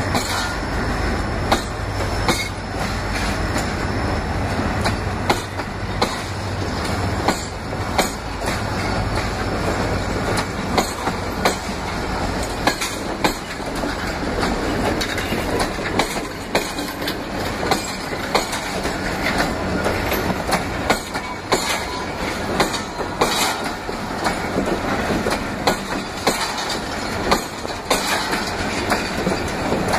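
Pakistan Railways passenger coaches rolling past close by, the wheels clacking over rail joints in a steady clickety-clack over a continuous rumble. The low rumble is heaviest in the first few seconds.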